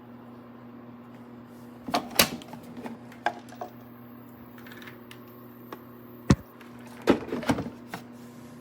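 A series of sharp clicks and knocks, loudest about two seconds in and again near the end, over a steady low electrical hum.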